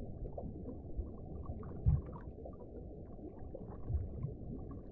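Underwater ambience: a steady low rumble of water with scattered faint pops and clicks, and a deep thump about two seconds in and another near four seconds.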